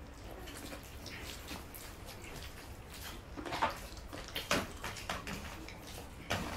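Quiet eating sounds: hands mixing and scooping rice and curry on steel plates, chewing, and a drink from a glass of water, with a few short sharp sounds in the second half.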